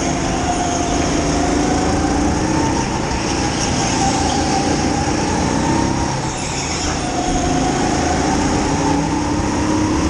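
Rental go-kart's single-cylinder four-stroke engine running hard, recorded on board over a steady hiss. Its pitch climbs over the first couple of seconds, dips briefly about six seconds in as the kart slows, then climbs again.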